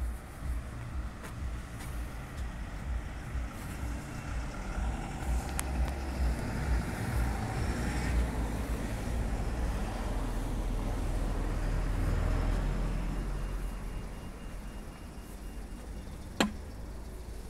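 Street traffic: cars driving past on the road, with one passing close and swelling to a peak in the middle, then fading. A single sharp click near the end.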